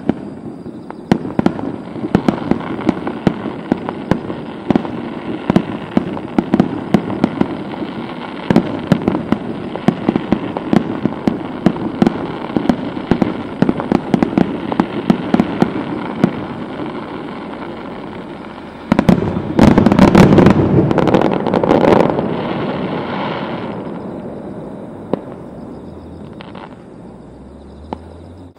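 Fireworks display: a rapid run of sharp crackling bangs, several a second, then a louder cluster of booms about two-thirds of the way through that dies away near the end.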